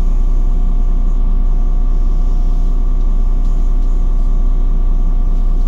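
City bus engine running steadily, heard inside the passenger cabin as the bus creeps forward: a deep drone with a steady whine above it.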